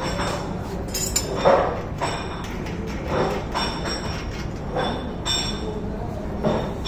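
A few irregular metal clinks and knocks as the steel mounting bracket and stand of a mini crane are handled, over steady workshop background noise.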